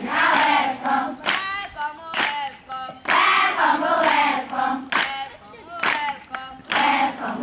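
A group of children singing together, with hand claps keeping the beat.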